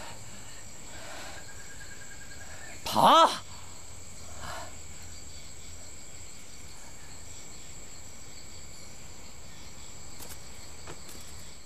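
Insects keep up a steady high-pitched drone in woodland. About three seconds in comes one short, loud call that rises and falls in pitch.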